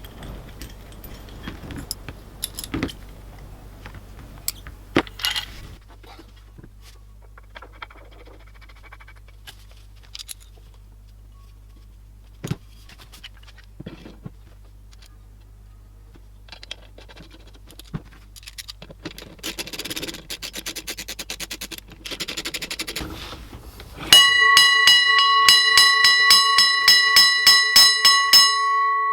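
Antique hand-crank fire alarm bell: scattered metallic clicks and clatter as the parts are handled, then a stretch of rapid clicking from the mechanism. Near the end the crank is turned and the bell rings loudly with a rapid run of hammer strikes, several clear tones sounding together, and rings on as the striking stops.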